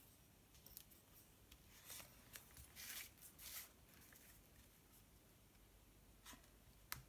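Faint rustles and scrapes of paper and card being handled as foam adhesive pads are peeled off their backing sheet and pressed onto a card panel, with a few louder scrapes in the middle and one short sharp click near the end.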